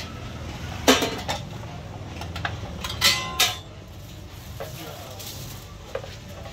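Steel-lined wooden hot pots and lids being handled and set down: a sharp clatter about a second in, a ringing metallic clatter around three seconds in, and a lighter knock near the end.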